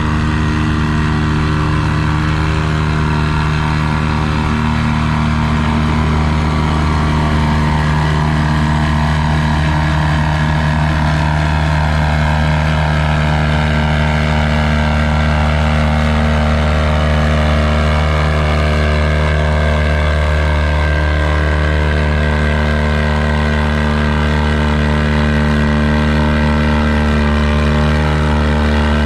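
John Deere 435's two-cylinder, two-stroke GM 2-53 diesel running hard and steady under load, pulling a weight-transfer sled down the track.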